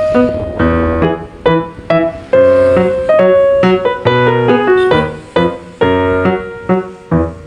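Background music led by piano: chords and melody notes struck in a steady rhythm.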